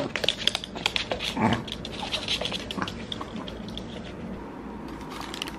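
Two small dogs taking and eating treats on a hard floor: a quick run of clicks and crunches from claws and chewing, thinning out after about three seconds.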